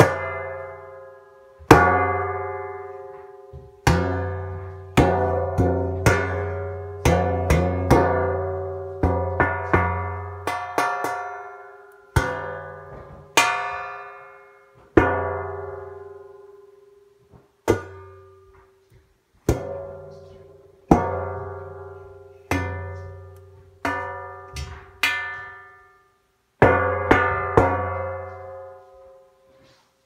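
Metal pizza pan struck about thirty times at different spots, each hit ringing out with a metallic tone that dies away over a second or two. The hits come irregularly, sometimes several in quick succession.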